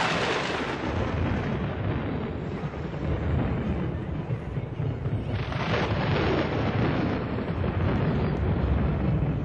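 Wind buffeting a camcorder microphone outdoors: a steady, uneven rumbling hiss with no tones, brightening a little about halfway through.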